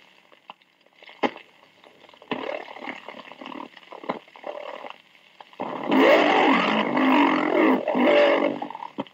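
Police two-way radio transmission from the 1963 Dallas Police Department Channel 2 Dictabelt recording, played back at half speed so the voice comes out slow, deep and growling. A few clicks and fainter radio noise come first, then a loud slowed voice from about six seconds in.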